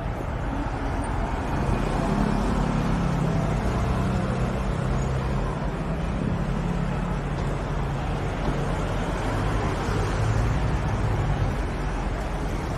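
City street traffic noise, with a motor vehicle's engine humming low and steady from about two seconds in.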